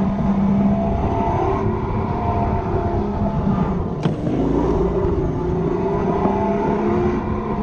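Electric go-kart running at speed, its motor whine rising and falling in pitch as the kart speeds up and slows through the corners, over a steady low rumble of wind and track noise. A sharp knock comes about four seconds in during a hard turn.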